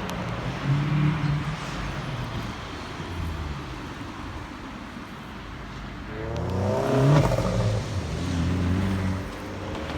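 Straight-piped Volkswagen Scirocco exhaust accelerating hard. The engine note sweeps up about six seconds in and is loudest about seven seconds in, then eases off, after a shorter rise in revs near the start.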